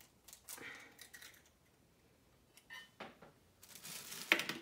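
Eggs being cracked into a small stainless-steel bowl: a few faint shell clicks, then a cluster of sharp taps and clicks near the end as an egg is knocked on the bowl.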